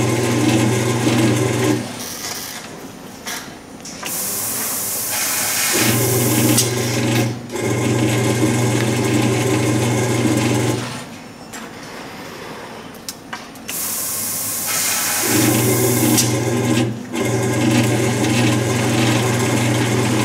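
Komatsu Electronics EF100M board-flip conveyor running in pass mode, boards carried straight through without being turned over. Its drive motor hums steadily for a few seconds at a time, with a short dip in each run, and stops. Between runs, about every ten seconds, there are a couple of seconds of hissing.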